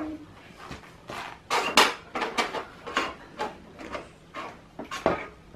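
Plastic toy Noah's Ark being handled: an irregular run of clicks and knocks as its roof and parts are moved, the loudest a little under two seconds in.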